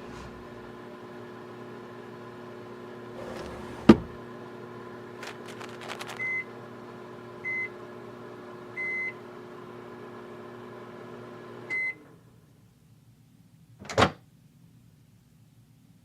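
Microwave oven running with a steady hum, with a sharp knock about four seconds in. Short beeps sound four times, and the hum stops at the last beep about twelve seconds in. Two thuds follow.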